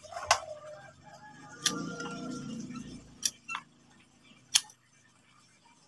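Pliers and bonsai wire clicking and clinking as a waru bonsai trunk is worked with the tool: five sharp metallic clicks spread out, one ringing briefly after it.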